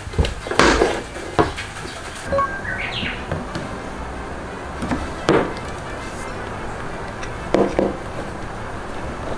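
Wooden frame bars of a FIELDOOR Classic folding chair knocking and clacking against each other and the wooden floor as they are fitted together: a few short sharp knocks, spread out, with two close together near the end.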